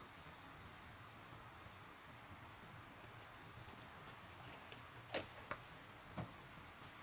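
Faint insect chorus: a steady high whine and a softer chirp repeating a little more than once a second. Three short sharp clicks or knocks come near the end, the loudest sounds here.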